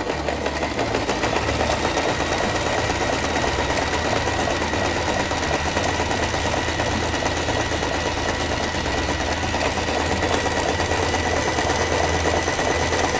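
Janome TR1018 sewing machine running steadily while sewing a stretch straight stitch, with a steady high motor whine over the rapid needle strokes.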